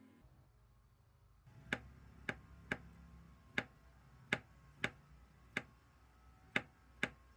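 Ceramic kitchen knife striking a wooden cutting board as it trims the prickles off a cucumber: nine sharp clicks at an uneven pace, starting about a second and a half in.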